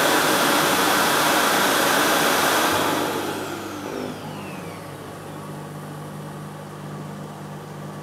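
Deebot X1 Omni base station's auto-empty suction motor running with a loud, even rush as it sucks the dust from the robot's dust compartment into the station's dust bag, then winding down about three seconds in with a falling whine. A quieter steady machine hum carries on after it.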